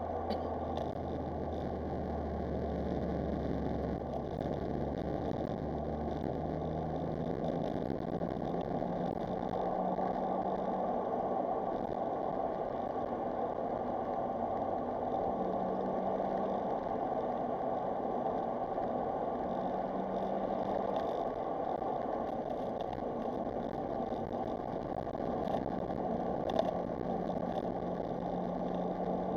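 Smart Roadster Brabus three-cylinder engine running while the car is driven, over a steady rushing noise, its engine note shifting in pitch several times.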